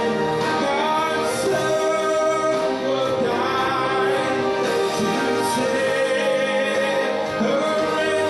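Gospel music: singing over instrumental accompaniment, with long held notes.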